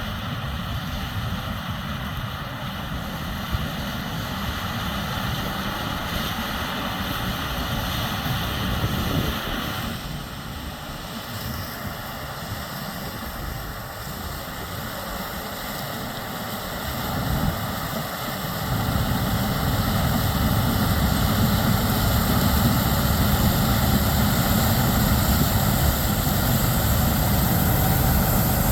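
Gleaner S97 combine harvesting corn, its AGCO 9.8-litre inline seven-cylinder twin-turbocharged diesel and machinery running steadily. It grows louder about two-thirds of the way through.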